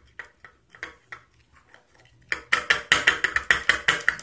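Wooden craft stick stirring a glue-and-glitter mixture in a small bowl, clicking and scraping against the bowl. The clicks are sparse at first, then come faster and louder from about halfway through, several a second.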